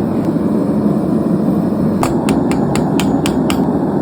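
Hand hammer striking hot mild steel round stock on an anvil: a quick run of about seven blows, roughly four a second, starting about halfway in, over a steady rushing noise.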